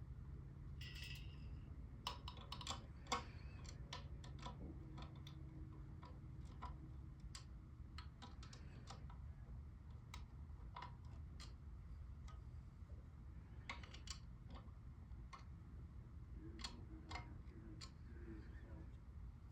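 Scattered small clicks and taps of ceiling-fan blades, brackets and screws being handled and fitted, irregular and a few louder than the rest, over a low steady hum.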